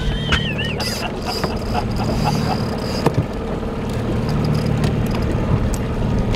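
Boat engine running steadily at trolling speed, with a few sharp knocks from the deck, the loudest about three seconds in.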